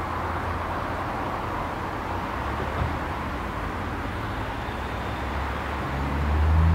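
Steady outdoor background noise with a low engine rumble underneath, which swells louder in the last second or so as a motor vehicle draws near.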